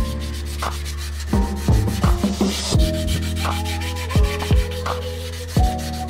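Lo-fi hip-hop background music with a steady beat of kick drums, bass and chords, over sandpaper rubbing on a primed steel bicycle frame.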